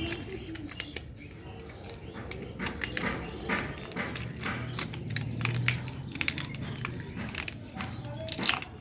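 Scattered small clicks and knocks of hand work with a tubeless-tyre puncture repair kit's tools, over a low steady hum.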